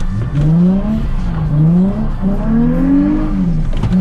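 Nissan 350Z's V6 engine revving up and falling back about three times in quick succession as the car is thrown into a drift around a cone on a wet track.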